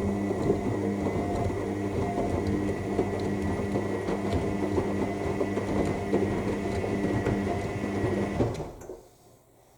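AEG 7000 Series washing machine's motor turning the drum in its main wash, with a steady hum and a thin whine over the slosh and clatter of wet laundry tumbling. The tumble stops about nine seconds in as the drum pauses.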